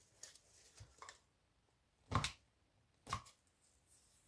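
Hands working at the casing of an old electronic unit being dismantled: a few faint clicks, then two sharper knocks about a second apart.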